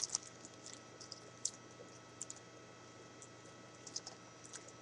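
Faint, scattered clicks and crinkles of a trading-card pack being opened and its cards handled, a few small ticks spread through a quiet room tone.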